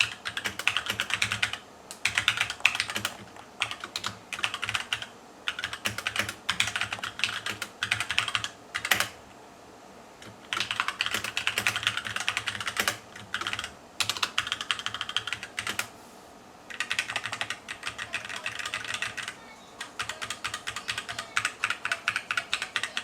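HyperX Alloy Origins mechanical keyboard with HyperX Red linear switches being typed on fast, in runs of rapid keystrokes broken by short pauses.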